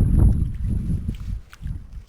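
Wind buffeting the microphone as a low, uneven rumble that dies down over the second half, with a faint click about one and a half seconds in.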